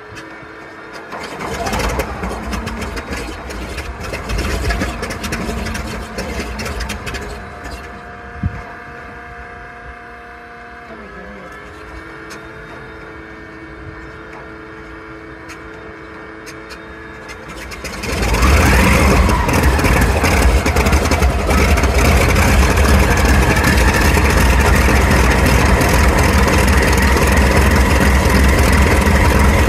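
Grumman F8F Bearcat's Pratt & Whitney R-2800 radial engine on a cold start, turning its propeller over on the starter with irregular coughs, then a quieter stretch. About eighteen seconds in, the engine catches with a sudden jump in loudness and keeps running steadily.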